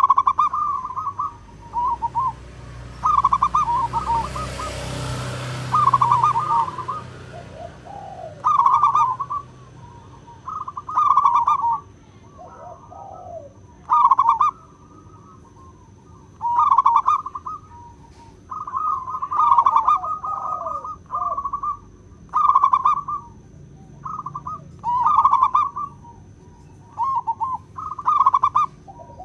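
Zebra doves cooing: repeated bursts of quick, stuttering trilled coos, a phrase every second or two, with some lower falling notes between the phrases. A broad rush of noise swells and fades about three to seven seconds in.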